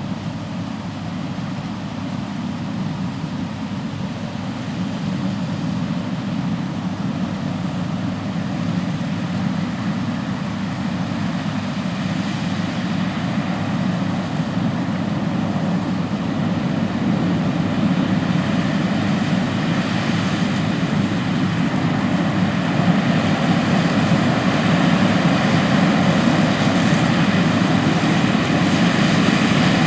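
New Holland CR8090 combine running steadily while harvesting corn, growing gradually louder as it comes closer.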